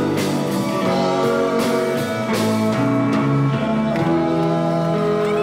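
Live country-rock band playing with electric guitars and drums. About four seconds in the drum hits stop and the guitars ring on a held chord at the close of the song.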